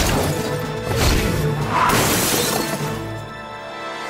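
Cartoon soundtrack music with added crash sound effects. There is a sharp smash at the start and another about a second in, then a longer shattering crash about two seconds in.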